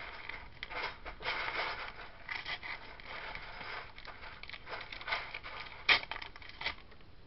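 A sticker packet being torn open and crinkled by hand: irregular rustling and tearing of the wrapper, with one sharper crackle about six seconds in.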